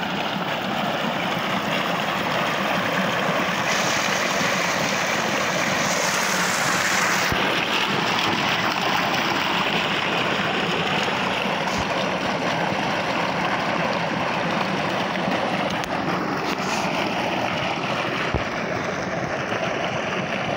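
Water gushing steadily from a 3-inch tubewell delivery pipe into a concrete tank, splashing and churning the water in it.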